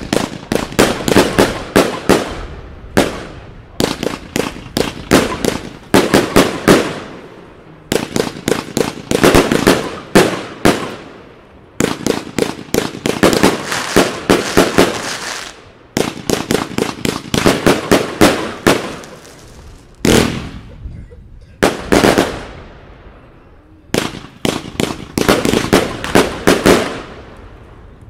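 Evolution Fireworks Toro Box, a 108-shot 25 mm compound fireworks cake, firing in rapid volleys. Each salvo is a dense cluster of sharp bangs lasting about one to two seconds, followed by a short gap before the next.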